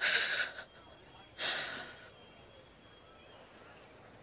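A woman sobbing in short breathy gasps, two of them about a second and a half apart.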